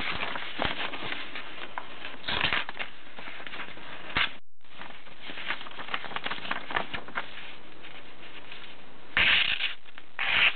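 A sheet of paper being handled and sliced with the small blade of a Victorinox Classic pocket knife in a cutting test. Scratchy paper rustles and small clicks, with louder swishes of the cut about two seconds in and twice near the end. The sound drops out briefly just after four seconds.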